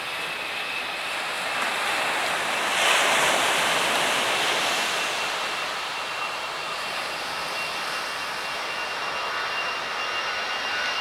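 Jet airliner engines running: a steady rush with a thin high whine through it, swelling slightly about three seconds in.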